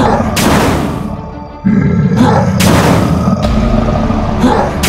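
Loud electronic background music with heavy bass, cut through by boom-and-whoosh sound effects about every two seconds.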